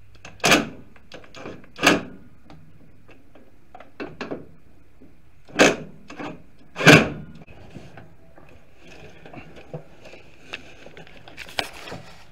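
Cordless impact driver in four short bursts, in two pairs, tightening the brake master cylinder's mounting nuts onto the firewall. Faint clicks and handling noise come between them and near the end.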